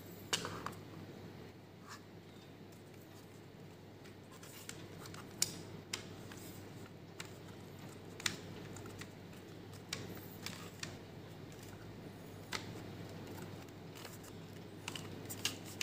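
Faint, scattered clicks and scrapes of plastic parts being handled as a foam dart blaster's gearbox is worked into its plastic lower receiver, over a low steady room hum.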